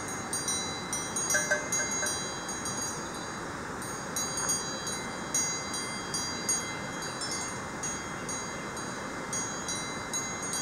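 Several cowbells clanking and ringing irregularly as the cows wearing them graze and move their heads, over a steady background hiss.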